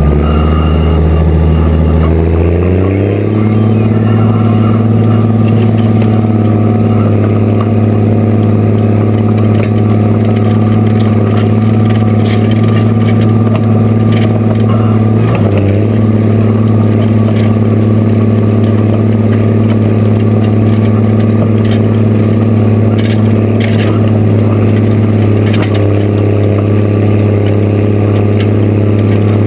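Steiger tractor's diesel engine pulling a chisel plow: its speed rises over the first three seconds, then holds steady under load, with a brief dip about halfway through. Scattered light clicks and rattles.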